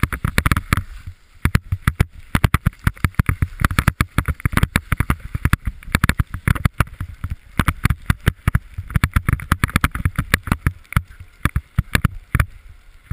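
Wind buffeting the microphone of a helmet-mounted action camera as the rider moves down a ski slope: a loud, dense, uneven stream of short gusts and thumps.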